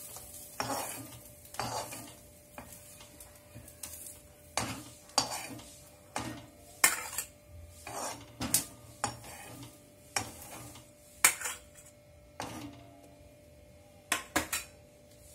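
Steel spatula scraping and clinking against a blackened kadai and a steel plate as fried onions and garlic are scooped out of the pan. The knocks come irregularly, some sharp and loud.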